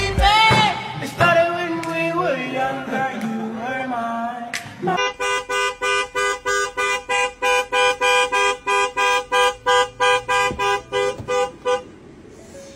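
Music with a singing voice, then from about five seconds in a car horn honking in quick, even beeps, about three to four a second, that stop shortly before the end.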